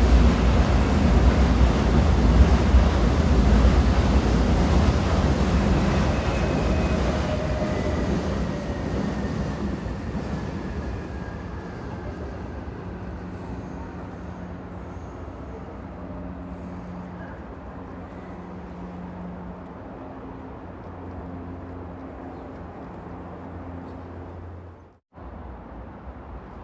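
Train rumble that dies away over the first dozen seconds, with a faint falling whine along the way, leaving a quieter noise with a steady low hum. The sound cuts out for a split second near the end.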